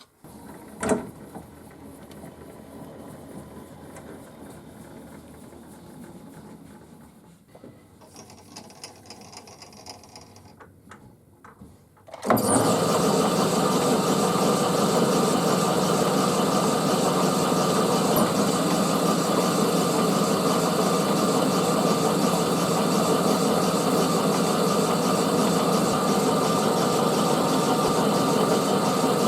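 Faint workshop handling sounds with a single knock about a second in, then an electric workshop machine is switched on about twelve seconds in and runs loud and steady.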